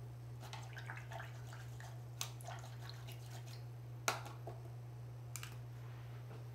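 A scatter of small clicks and light taps, the sharpest about four seconds in, as painting tools such as brushes are handled on a worktable, over a steady low hum.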